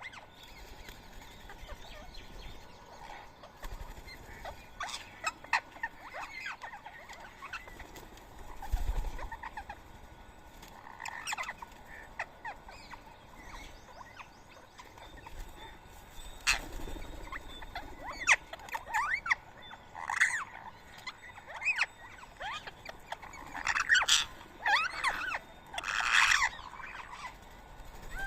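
Birds calling with short, sharp, high calls, scattered at first and coming thicker and louder in the last ten seconds or so. There is a low bump about nine seconds in.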